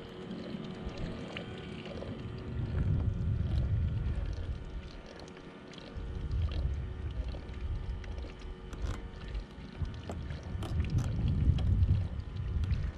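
Wind rumbling on the microphone in gusts that swell and fade every few seconds, with scattered light clicks and taps from the fishing rod and reel as the line is worked against a heavy fish.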